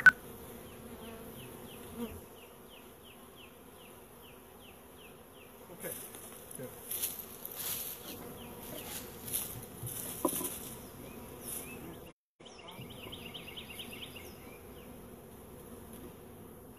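Honey bees from newly installed packages buzzing in the air, a steady hum. A quick high chirping repeats over it at the start and again later, and rustling comes in the middle.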